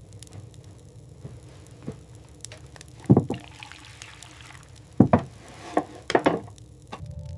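Water splashing and pouring in a few short bursts: one about three seconds in, then several between five and six and a half seconds, with a softer pour between them.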